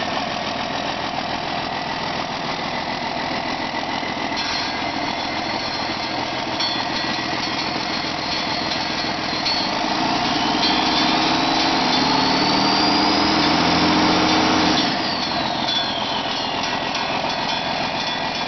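2001 Cummins ISB 5.9L inline-six turbo diesel running at idle. About ten seconds in it picks up revs with a rising turbo whine, holds for about five seconds, then drops back to idle as the whine falls away.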